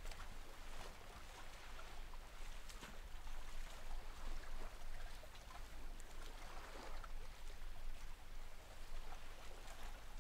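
Faint, slow, deep breathing: soft breathy swells that rise and fall every few seconds while a yoga pose is held.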